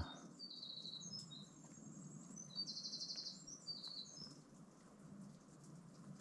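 A songbird singing faintly: a string of thin, high-pitched notes and a rapid trill in the first four seconds or so.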